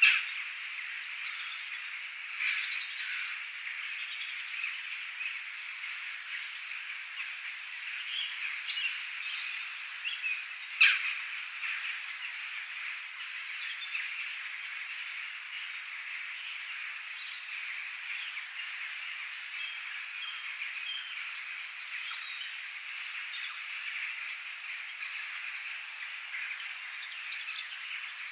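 Steady rain hiss with scattered bird chirps and calls throughout. Two sharp clicks stand out, one at the very start and one about eleven seconds in.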